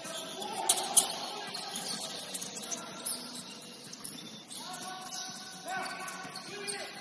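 Basketball game in a gym: sharp knocks of the ball about a second in over a steady mix of players' and onlookers' voices, echoing in the hall.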